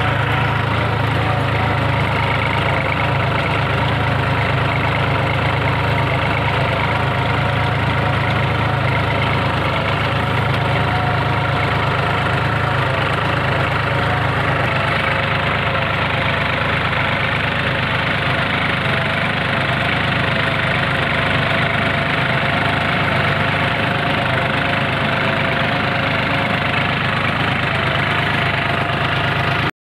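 New Holland 4710 tractor's diesel engine running steadily under load while ploughing, heard close up from the driver's seat.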